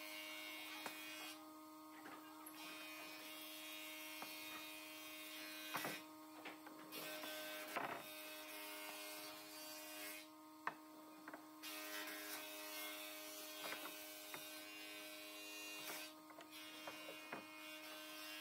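A faint, steady electrical hum, one low tone with its overtones, with scattered light clicks and knocks over it.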